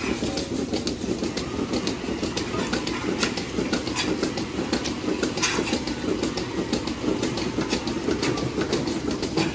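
Milking-parlour machinery running: a steady, rapidly fluttering drone with frequent sharp clicks and hisses from the milking units as clusters are put on the cows.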